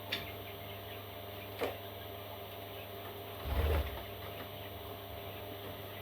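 Parrot chicks giving two brief, soft calls near the start, then a louder bump and rustle about three and a half seconds in, over a steady low hum.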